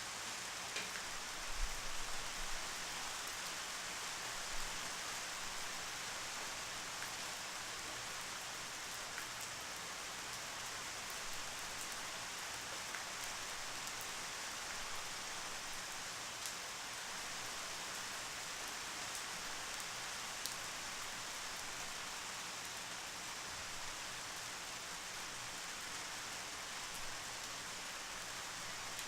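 Steady rain falling: an even hiss with scattered drop ticks and a few heavier knocks about two seconds in.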